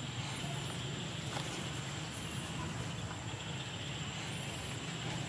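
Steady outdoor background noise with a low hum and a thin high whine, crossed three times by a faint, very high-pitched chirp that rises and falls.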